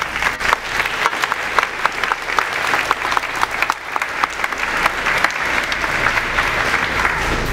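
Audience applauding, many hands clapping at once in a steady, dense patter.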